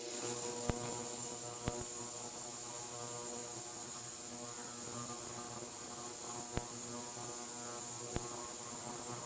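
Steady electrical hum with a high hiss over it, and a few light clicks.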